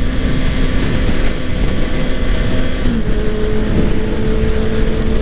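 Honda CBR 650R inline-four engine running at a steady note while riding, with wind rushing over the microphone. The engine note shifts slightly lower about three seconds in.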